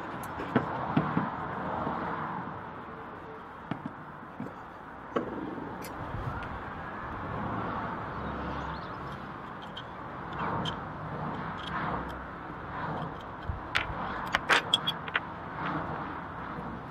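Steady background noise with scattered sharp clicks and knocks, and a quick run of clicks shortly before the end.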